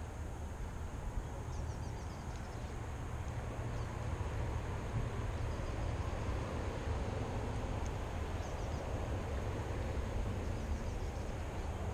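Steady low rumble of wind on the microphone, with a few faint bird chirps about two seconds in and again near the end.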